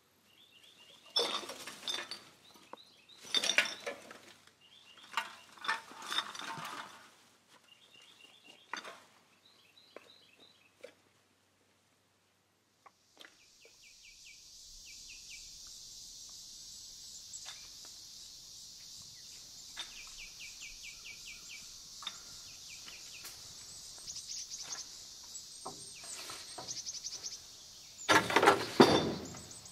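Birds chirping over intermittent rustling and crunching. After a short break a steady high drone sets in with more chirps. Near the end come several loud knocks, fitting a campground trash bin's lid being handled as bags are dropped in.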